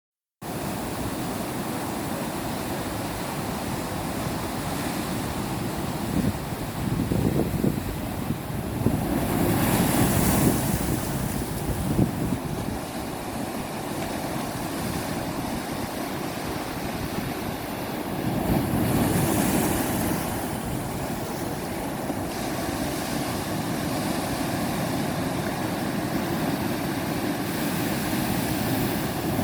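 Sea waves washing over rock pools: a steady rush of surf, with two larger waves swelling in louder, about a third of the way in and again past halfway.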